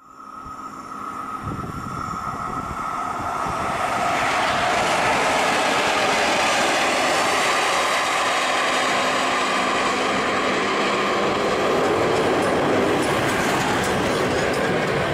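Electric locomotive running light along the track. Its sound builds over the first few seconds and then holds steady, with a faint steady whine that fades early on.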